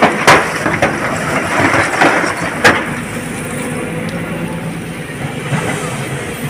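Excavator loading a tipper truck: diesel engine running steadily, with several loud clanks and a rattle of rock falling into the truck's steel body in the first three seconds.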